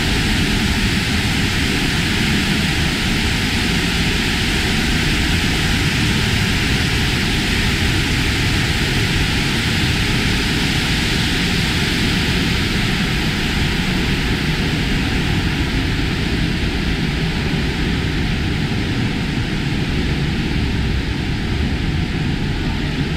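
Heavy waterfall pouring down close by: a loud, steady rushing of falling water.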